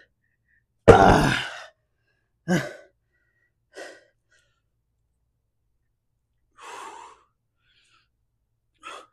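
A man breathing hard after a set of weighted hyperextensions: a loud voiced sigh about a second in, a falling groan-like exhale soon after, then fainter breaths every few seconds.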